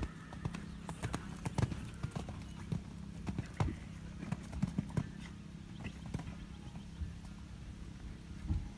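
Hoofbeats of a show-jumping horse cantering on a sand arena: a run of dull thuds and clicks as the hooves strike the footing.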